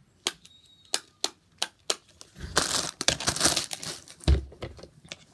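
Plastic fidget toy being pressed, giving a series of sharp clicks or pops, about two or three a second. Then a burst of crinkling plastic handling and a single thump.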